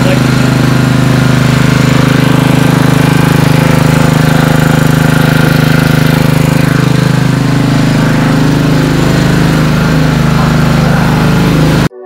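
A portable generator's engine running at a steady, loud, even hum, cutting off abruptly just before the end.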